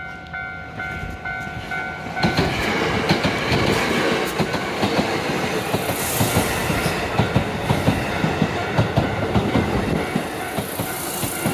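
A level-crossing bell ringing in a quick repeated ding, then about two seconds in a Hankyu train passing over the crossing and drowning it out, its wheels clattering rhythmically over the rail joints.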